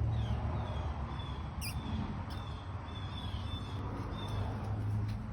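Bird calling in a run of short, thin, high whistled notes, about two a second, over a steady low hum, with one sharp click about a second and a half in.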